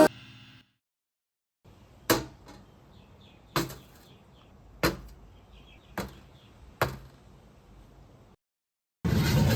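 A kitchen knife chopping on a cutting board in five single, separate strokes about a second apart. Near the end a loud, steady hiss starts.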